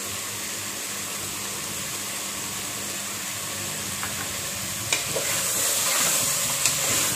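Goat trotters with onion and tomato sizzling steadily as they fry in a pressure cooker pan. From about five seconds in, a metal spoon clicks and scrapes against the pot as the pieces are stirred.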